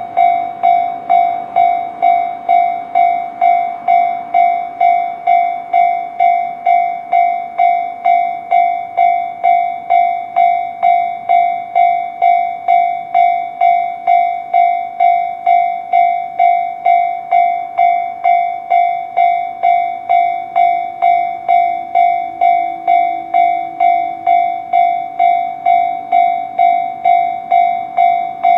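A single-pitched bell or chime striking evenly about twice a second, each stroke dying away before the next, going on without change.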